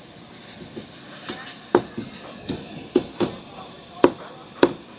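Cleaver chopping on a chopping block: irregular sharp chops, a few quiet ones at first, then louder strokes coming about once or twice a second.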